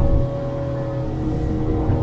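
Boat's outboard motor running at a steady cruising speed, with water rushing past the hull, heard from inside the small pilothouse cabin.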